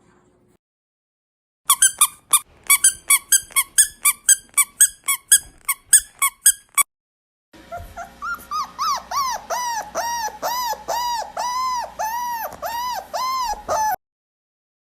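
A dog vocalizing: a fast run of sharp high yips, about three a second, then after a short pause a long regular series of rising-and-falling whines, about two a second, that cut off abruptly.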